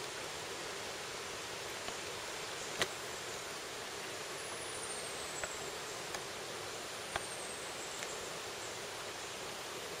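Shallow forest stream rushing over a rocky riffle, a steady hiss. A few sharp clicks and two faint, high falling whistles sound over it.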